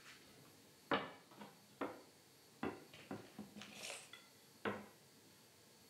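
Oak strips knocking on an oak board as they are set down and shifted: several sharp wooden clacks, the loudest about a second in. Around the middle a tape measure's blade is pulled out with a short rasp.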